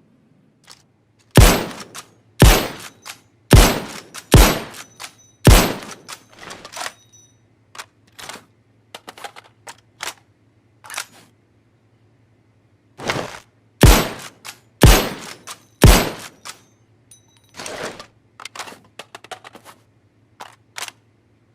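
Remington Model 700 bolt-action rifle sound effect: five loud shots about a second apart, then scattered lighter clicks and clacks, then three more shots a second apart, followed by more small clicks.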